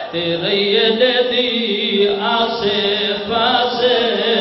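A man's voice chanting a mourning verse in long, held melodic notes through a microphone and loudspeakers.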